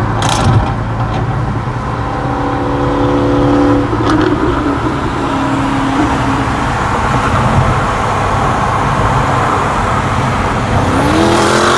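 Car engine and road noise heard from inside the cabin at freeway speed, a steady drone that shifts in pitch a few times. Near the end an engine revs up, rising in pitch.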